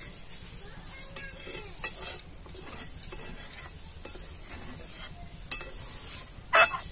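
A long metal spatula stirring and scraping thick rice pudding (payesh) around a large metal pan. There is a sharp clink of spatula on pan near the end, the loudest sound.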